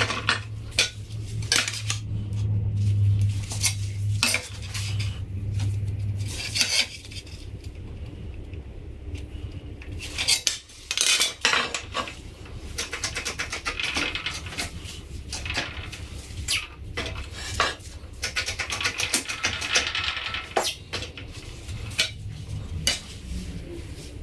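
A thick steel buffer-beam plate clanking and scraping on the steel bed of a hydraulic press as it is shifted and repositioned, with many sharp metallic knocks. A steady low hum runs for the first six seconds or so.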